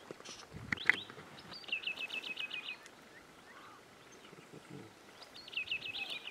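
A songbird singing two phrases, each a rapid run of about ten high repeated notes lasting about a second. A sharp knock about a second in is the loudest sound.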